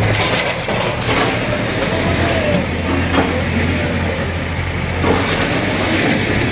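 Backhoe loader's diesel engine running steadily under load as its arm pushes down a brick wall, with a few knocks and crashes of falling masonry and rubble.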